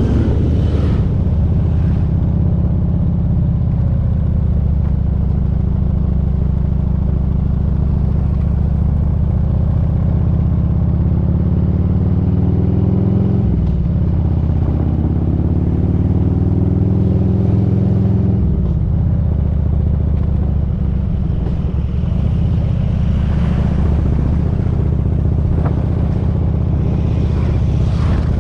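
Motorcycle engine running steadily under way, a low continuous drone. About halfway through its pitch dips briefly and climbs again, then changes once more a few seconds later.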